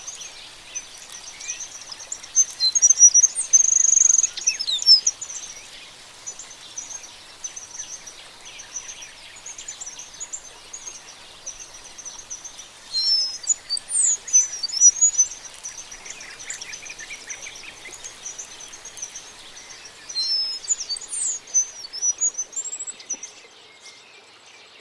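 Oriole finch (Linurgus olivaceus) calling and singing: quick, high-pitched chirps and short gliding whistles. They come in three louder bursts, about three seconds in, around thirteen seconds and around twenty-one seconds, over a steady background of faint high twittering and outdoor hiss.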